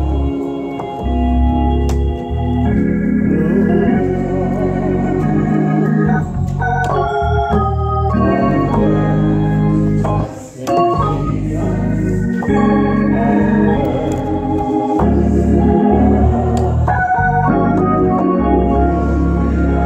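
Gospel organ playing sustained chords over low bass notes, the chords changing every second or two, with a brief break about ten seconds in.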